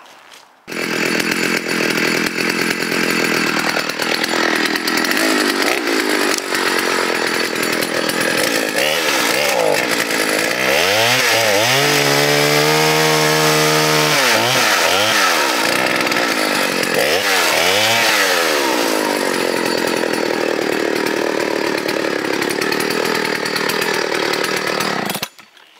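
A 1979 Partner S55 55cc two-stroke chainsaw running and being revved to warm it up. It gives several quick throttle blips that rise and fall, with one long hold at full revs about halfway through. The sound starts and stops abruptly.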